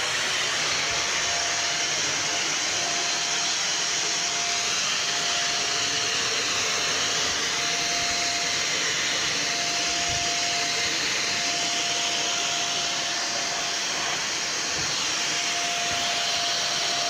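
Vacuum cleaner running steadily on carpet: an even rush of air with a steady whine from the motor.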